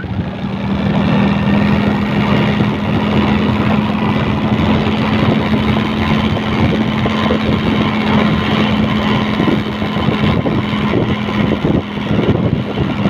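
Motorcycle engine running at a steady speed while riding, a constant low hum under heavy wind and road rush on the microphone.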